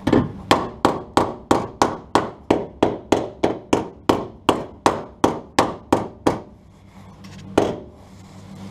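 Hammer blows on the steel sill panel: a fast run of about twenty strikes, roughly three a second, each ringing briefly, then one last blow about a second later.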